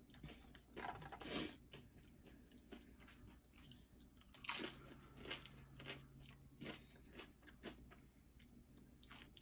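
Close-up eating of Doritos nachos: loud crunching bites of the tortilla chips, about a second in and again about four and a half seconds in, with quieter crunching and chewing between them.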